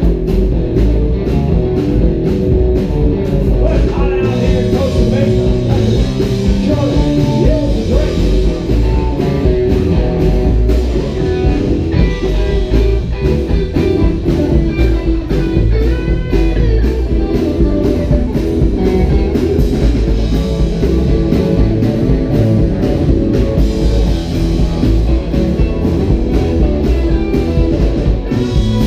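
Live rockabilly band playing loud: two electric guitars and an electric bass over a drum kit keeping a steady, quick beat.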